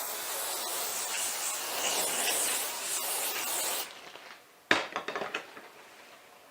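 An aerosol hair product (hairspray or texturizing spray) sprays in one continuous hiss for about four seconds, then stops. A sharp click and a few lighter taps follow shortly after.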